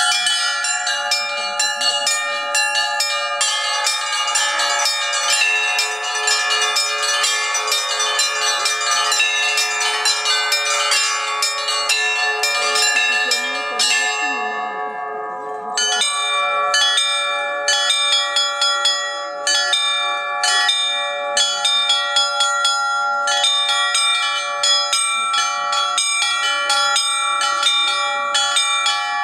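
Russian church bells being rung: rapid, overlapping strokes of several bells at different pitches. The smallest, highest bells fall silent for a couple of seconds about halfway through, then the full ringing resumes.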